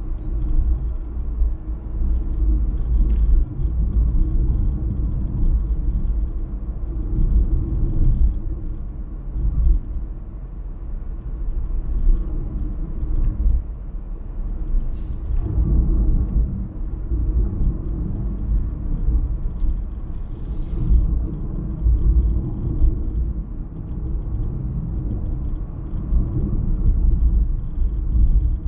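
Car driving along a road: steady low rumble of road and engine noise. Two short hisses come through, one about halfway and one about two-thirds of the way in.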